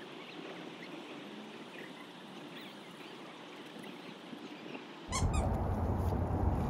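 Faint short high chirps of birds over soft outdoor ambience. About five seconds in, a much louder low rumbling outdoor noise cuts in abruptly.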